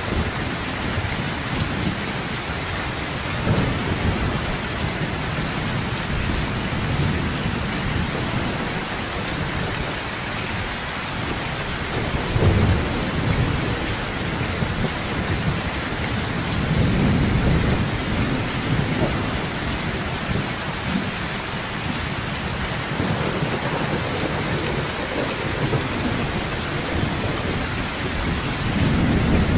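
Heavy rain falling steadily on a sheet-metal roof, with several low rolls of thunder rumbling through it, the loudest about twelve seconds in.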